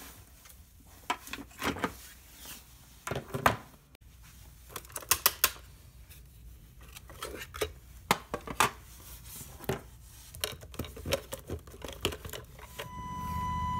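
Hands handling a plastic RC fire truck and its battery connectors, in a scattered run of sharp clicks, knocks and rattles. About a second before the end, a steady high electronic tone and a low hum start.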